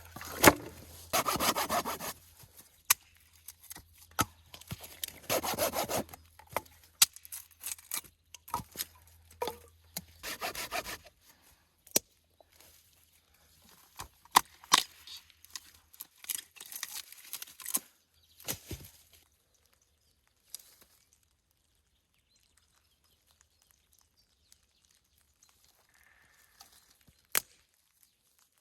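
Wood being worked by hand: a few rasping strokes and many sharp snaps and cracks of branches, which die away after about two-thirds of the way through, leaving a single crack near the end.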